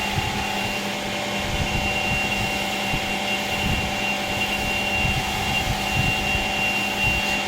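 Electric motors of a four-motor combination woodworking machine running steadily: a constant hum with a thin high whine, with a few dull low knocks.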